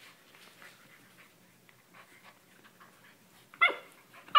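Poodle puppy giving a short high-pitched yip about three and a half seconds in and a louder one right at the end, in play with another puppy; before that only faint scuffling.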